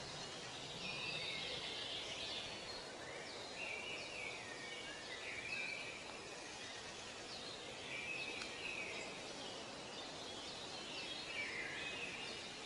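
Outdoor ambience of several birds chirping and calling over and over, with a steady background hiss.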